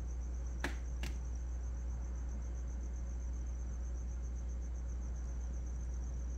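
Crickets chirping in a steady, evenly pulsed high trill over a low steady hum. Two sharp clicks, a fraction of a second apart, come about a second in.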